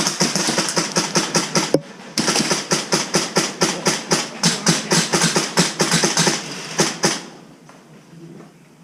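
Airsoft gun firing in rapid bursts: a quick string of sharp cracks, a short pause about two seconds in, then a longer string that stops about seven seconds in.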